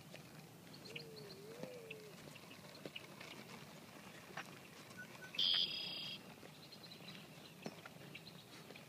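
Quiet open-air ambience with scattered light ticks. About five and a half seconds in there is a single short, steady high-pitched tone that starts and stops sharply.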